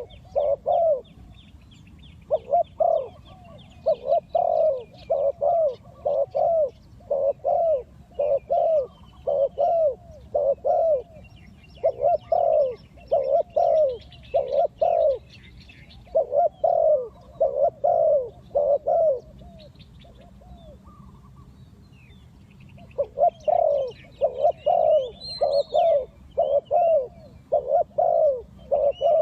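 Spotted dove cooing over and over, low hollow coos in runs of several notes broken by short pauses. Faint high chirps of small birds sound behind it.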